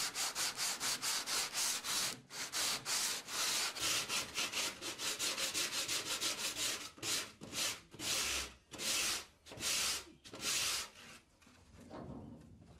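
Hand-sanding bare wood with sandpaper: rhythmic back-and-forth scraping strokes, about five a second at first, slowing to longer strokes about two a second in the last few seconds, stopping about a second before the end.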